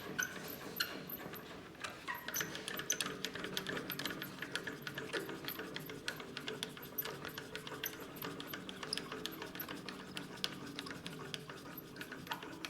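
Light, irregular clicking and scraping of hand work on a mini metal lathe's bed as it is oiled: small tool and oil-can contacts against the metal, several ticks a second.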